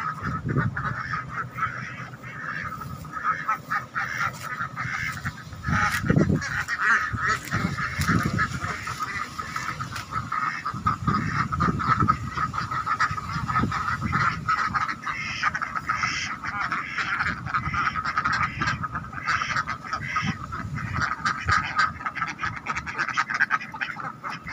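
A flock of domestic ducks quacking continuously in a dense, overlapping chatter while they crowd round their feed.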